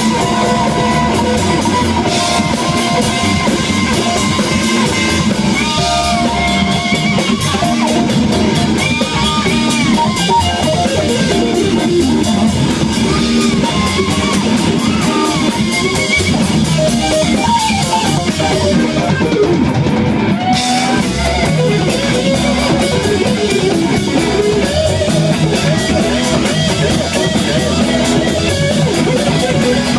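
Live funk-rock band playing: a lead electric guitar line with bent notes over a drum kit. The cymbals drop out briefly about two-thirds of the way through.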